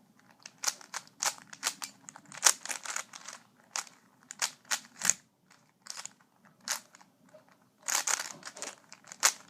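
YJ Guanlong 3x3 speedcube being turned fast in a solve: rapid plastic clicking in irregular flurries of turns, crunchy and clicky at its loose out-of-the-box tension.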